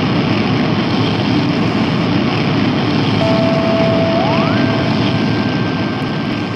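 Rocket-launch sound effect: a loud, steady roar of noise. A single tone comes in about three seconds in, slides up in pitch a second later and holds.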